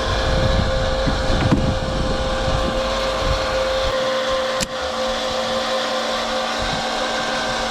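Farm tractor engine running steadily with a constant whine over it. A heavier low rumble drops away about four seconds in, followed by a brief click.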